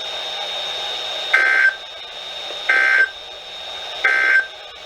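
Emergency Alert System end-of-message signal on NOAA Weather Radio: three short digital data bursts, about 1.3 seconds apart, over the receiver's static hiss. They mark the end of the required weekly test.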